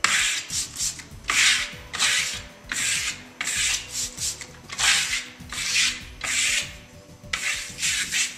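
Metal plastering trowel scraping back and forth over wet clay plaster on a wall, in about a dozen quick rasping strokes with a short pause near the end. The plaster surface is over-wet and turning sticky, the sign of improper compression.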